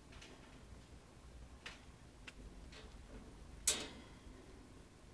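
Pet rats' claws and feet clicking against the wire bars of their cage: a handful of sharp, irregular ticks, with one louder knock about two-thirds of the way through.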